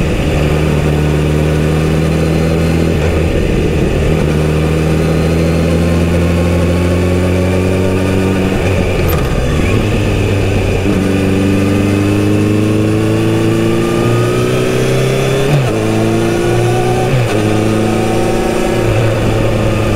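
Kawasaki Z900RS inline-four engine through a full-system exhaust, running steadily under way. Its pitch climbs slowly over long stretches and drops back several times at gear changes.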